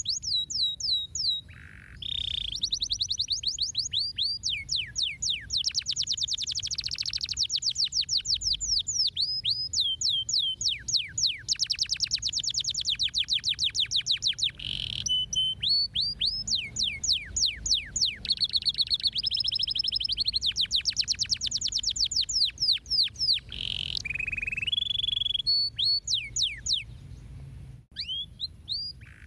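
Domestic canary singing: long rolling trills of rapid, high falling whistled notes, many per second, broken by short steady tones between phrases, with a brief pause near the end.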